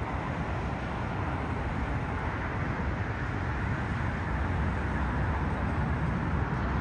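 Steady jet-engine roar of a Boeing 777-300ER's General Electric GE90 engines on final approach, a deep, even rumble that grows slightly louder near the end.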